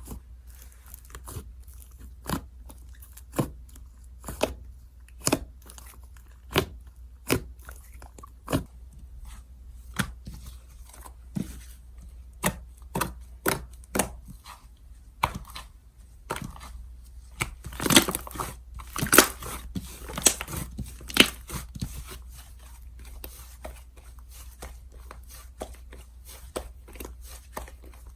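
Slime being squeezed and stretched by hand, giving sharp pops and crackles about once a second, with a louder run of pops in the middle.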